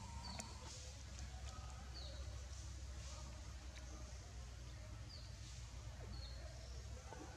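Faint outdoor background: a bird giving a few short, high, falling chirps, a second or more apart, over a steady low rumble.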